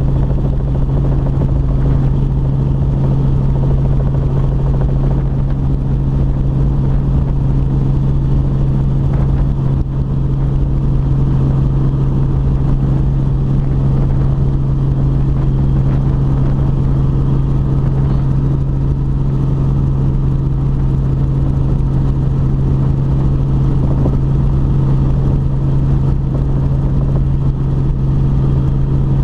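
Robinson R44 helicopter in steady cruise, its engine and rotor making a constant low drone, heard from inside the cabin with the doors off.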